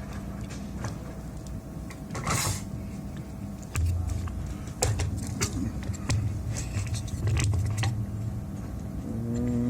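Scattered small clicks and taps of tools being handled on a workbench while a fuse is taken off a power supply board, over a steady low electrical hum that swells at times. A short hiss comes about two seconds in.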